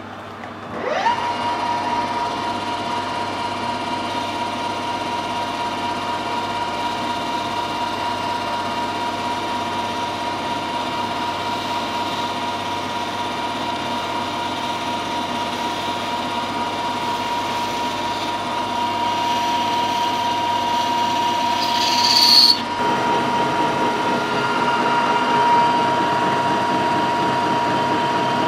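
Metal lathe starting up about a second in, its whine rising to a steady pitch, then running steadily while the tool takes a light finishing spring cut in the bore of a part. About three-quarters of the way through there is a brief, louder high hiss.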